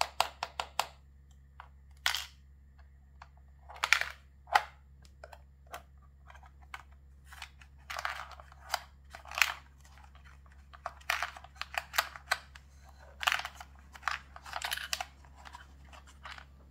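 Plastic toy vending machine being handled: a quick run of small clicks, then irregular plastic clicks, taps and rattly scrapes as its clear dispensing-tray flap is pushed open and fingers reach into the tray.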